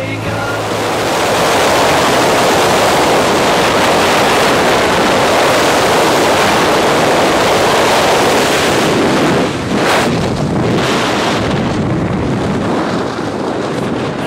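Freefall wind rushing loudly over a camera microphone during a tandem skydive, a steady roar of air. About ten seconds in it dips briefly and then runs a little lower, as the main parachute opens.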